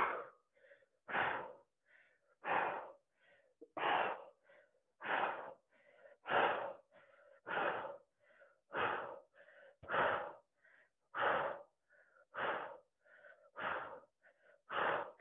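A woman's heavy breathing under exertion: a forceful exhale about every 1.2 seconds, in a steady rhythm, with quieter inhales between.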